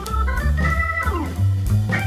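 Background instrumental music: organ-like keyboard notes over a bass line, with a falling pitch slide about a second in.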